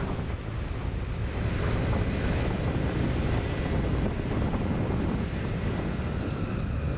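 Steady wind rush on the microphone of a camera riding on a moving Honda Vision 50 moped scooter, with the scooter's engine and tyre noise faint beneath it. The rush grows a little louder about a second and a half in.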